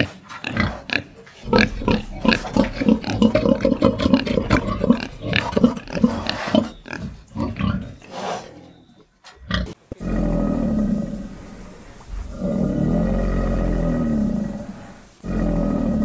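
Pigs grunting in quick, overlapping bursts for about nine seconds. Then, after a cut, come three long, low growling rumbles from a crocodile, each two to three seconds long.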